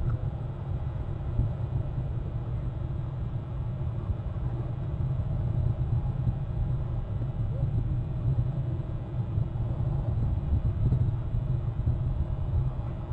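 Steady low rumble of outdoor background noise on the camera microphone, swelling and dipping irregularly, with no bird calls standing out.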